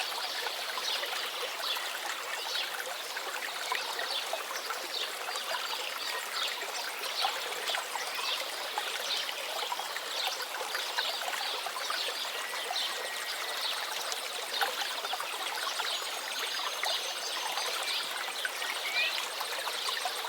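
A small stream of water trickling and splashing steadily over stones.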